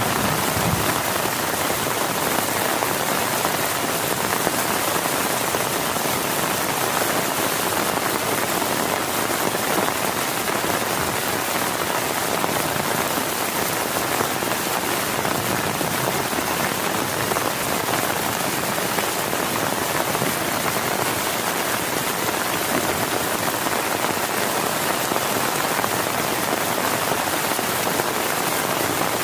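Heavy rain falling steadily, a dense even hiss without breaks.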